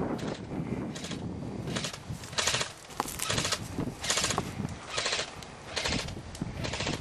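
Airsoft electric guns firing a series of short rattling bursts, roughly one burst a second.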